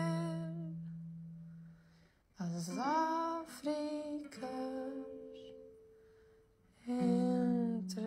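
Soft music: a voice humming a slow wordless melody, with held notes that fade away twice into short near-silent pauses before the next phrase.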